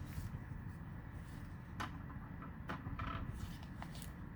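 Sheet of paper being folded and creased by hand: a few short crinkles and taps over a steady low hum.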